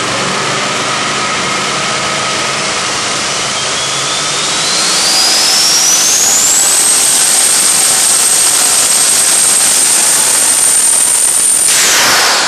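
Twin-turbo 408ci LS2 V8 running hard on an engine dyno, the Garrett turbochargers' whine rising in pitch over a few seconds and then holding one high steady note. Near the end the note drops abruptly and the whine falls away as the turbos spool down.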